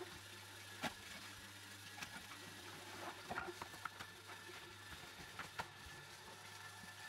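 Faint scattered clicks and knocks of fruit, vegetables and kitchen utensils being handled on a countertop and cutting board, over a low steady hum.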